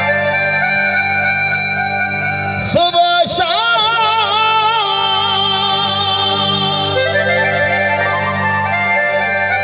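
Live Saraiki folk music: a harmonium plays sustained reedy tones over a steady low drone. About three seconds in, a wavering held melody note comes in over it.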